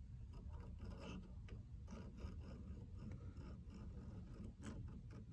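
Faint scratching of a dial caliper's jaw tip scribing a line across a Sharpie-inked cast-iron hand-plane casting, as a few short scrapes.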